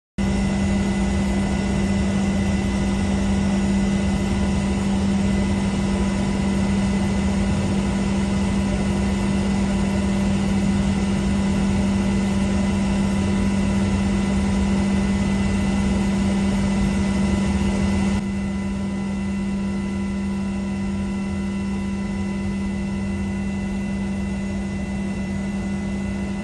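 Seaplane engines running steadily: a constant drone with a strong low hum and a few steady higher tones. It drops slightly in level about 18 seconds in.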